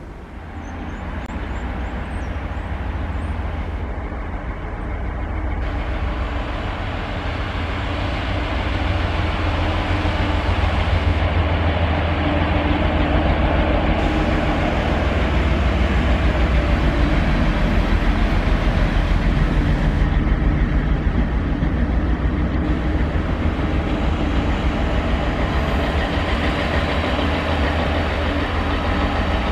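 FS D445 diesel locomotive hauling freight wagons, its engine giving a deep, steady rumble over the noise of the train on the rails. The sound grows louder over the first ten seconds as the train draws near, then holds.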